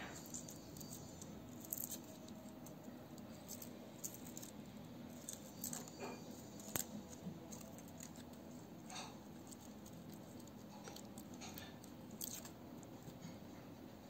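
Faint crackling and rustling of dry garlic skins as cloves are peeled with a small knife, in scattered small clicks and scrapes.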